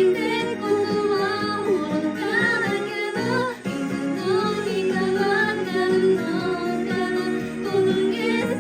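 A woman singing a J-pop song in Japanese over a karaoke backing track. The music dips briefly about three seconds in.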